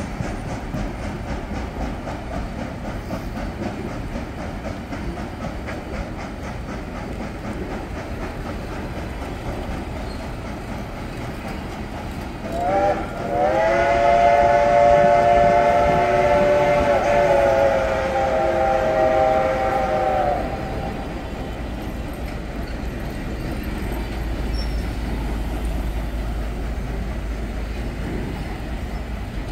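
Passenger coaches rolling past with steady wheel clatter. About twelve seconds in, the whistle of steam locomotive Reading T1 No. 2102 gives a short note, then a long chord-like blast of about seven seconds before cutting off.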